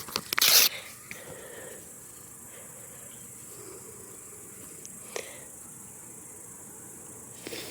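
A short, hard puff of air about half a second in, breath blown onto a struggling campfire. Then a faint steady hiss with a thin high tone, and a single sharp click about five seconds in.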